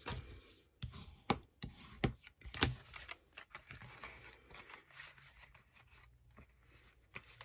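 Pink cardstock being handled on a wooden tabletop: a few sharp taps and knocks in the first three seconds as a pen box is set onto the paper, then soft rustling and scraping of the paper as it is pressed and folded around the box.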